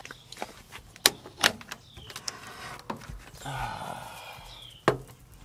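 Wooden chicken coop door and nest box being handled: a few sharp wooden knocks and clicks, the loudest about a second in and again near the end, with faint short high chirps between them.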